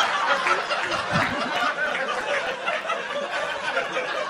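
Audience laughing after a stand-up punchline, a dense crowd laugh that slowly dies down.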